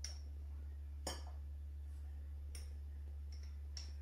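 A metal teaspoon clinking against a small jar as dry yeast is scooped and measured out: about five light, separate clinks, the loudest about a second in, over a steady low hum.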